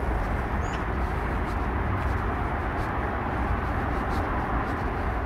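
Steady outdoor background noise with a heavy low rumble, and one brief, faint high bird chirp under a second in.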